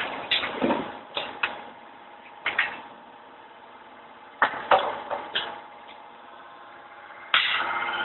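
Sharp metallic clanks and knocks as a hot steel rod is handled and set into the press tooling, in two short clusters. About seven seconds in, a machine starts running with a steady hum and a whining tone.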